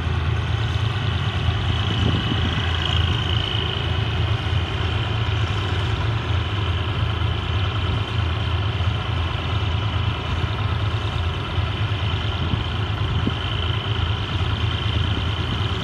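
Diesel locomotive GEK 4039's engine running steadily under load as it hauls a train of cement wagons, a low even hum with a faint high steady tone above it.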